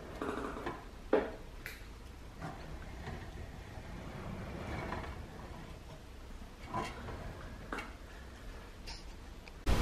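Plastic toy truck being handled and moved on a countertop: scattered light knocks and clicks over a low rumble, the sharpest about a second in. A loud steady hiss cuts in at the very end.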